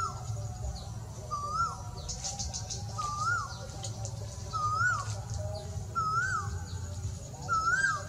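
Male Asian koel calling: one short note that rises and then drops sharply, repeated about every one and a half seconds. Fainter, higher whistles of other birds sound in the background.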